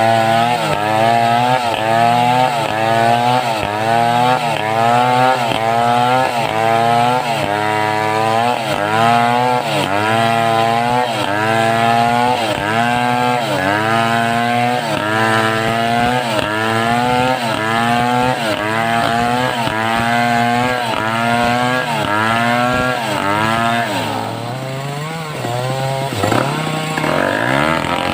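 Homemade two-stroke chainsaw ripping a mindi log lengthwise under load. The engine pitch dips and recovers a little more than once a second as the bar is worked through the cut. Near the end the engine drops to a low pitch, then revs back up.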